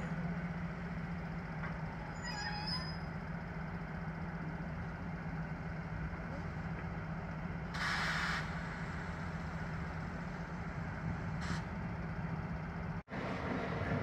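Colas Rail Freight Class 56 and Class 70 diesel locomotives idling with a steady low hum. About eight seconds in there is a short hiss of air.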